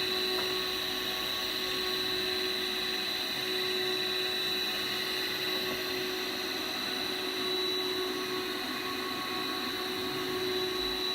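Electrical machinery running steadily: an even whirring with a constant high-pitched whine and a lower hum.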